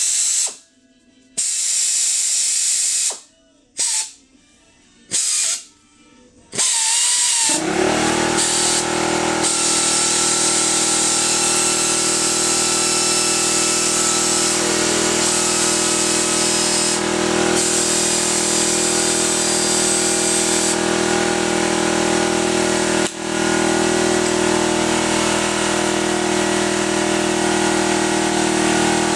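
Sioux 1410R pistol-grip pneumatic air drill, triggered in several short bursts, then run up and held at steady speed with a hissing whine, with one momentary dip late on.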